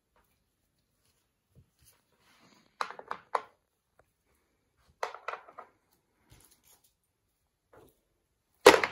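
Painted sea pebbles clacking against each other and the tray as they are set in place: a few short, sharp clicks about three seconds in, another cluster about two seconds later, and a louder burst of clatter right at the end.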